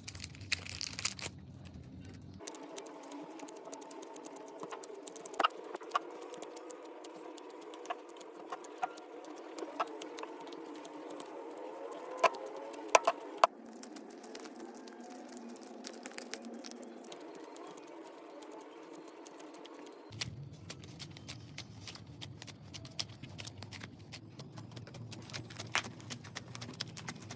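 Slime being squeezed and worked by hand: continuous sticky crackling and crinkling, with sharp little pops and clicks.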